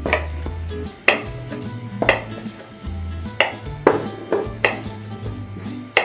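Kitchen knife cutting chili peppers on a wooden cutting board: about eight sharp, irregularly spaced knocks of the blade hitting the board, over background music.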